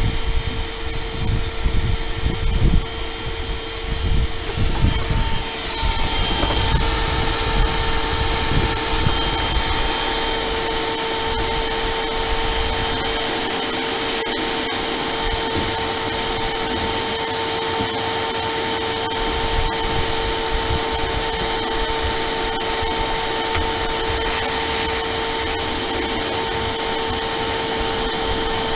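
Shop vacuum running, its hose sucking dirt off a bare boat floor: a steady whining hum, with knocks and rumbling from the hose in the first few seconds before it settles.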